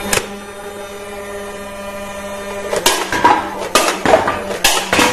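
Battery-powered toy blaster's motor whirring steadily, then firing shots about once a second from roughly three seconds in.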